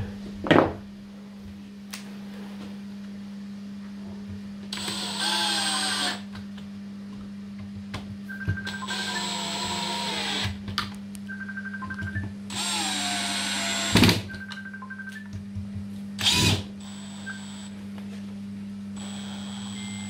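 Cordless drill-driver driving screws into a plastic submersible pump housing: three runs of a second or two each, the motor's pitch dropping as each screw pulls tight, with a few sharp knocks between them. A steady low hum sits underneath.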